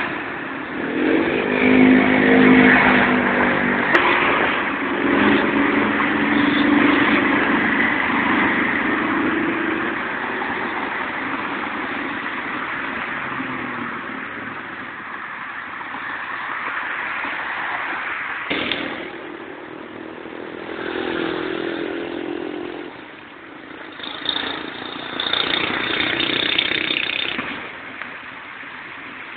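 Vehicle engine and road noise heard from inside a moving vehicle, through a low-quality old Nokia phone microphone that makes it sound thin and muffled. The engine note rises and swells as the vehicle speeds up, early on and again twice in the second half, with a single knock about 18 seconds in.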